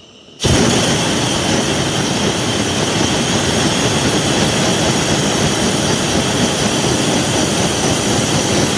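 Hot air balloon's propane burner firing: a loud, steady rushing blast that starts suddenly about half a second in and holds without a break.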